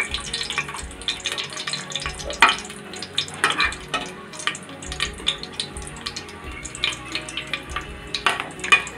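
Whole spices sizzling in hot ghee in a metal pot, stirred with a steel spoon that scrapes and clicks against the pot bottom at irregular moments over the steady sizzle.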